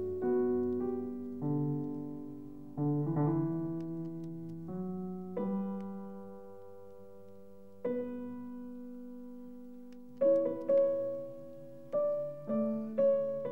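Slow solo piano music: single notes and chords struck and left to ring out and fade, coming closer together and louder in the last few seconds.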